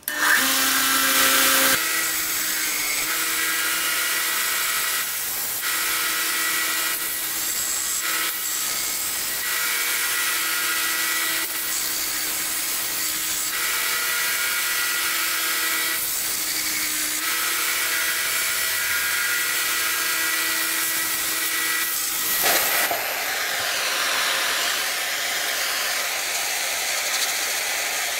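WEN benchtop belt sander switched on and running: a steady motor hum and belt hiss that dips and comes back every few seconds as a piece is pressed to the belt. About three-quarters of the way through it gives way to the even hiss of a propane torch burning.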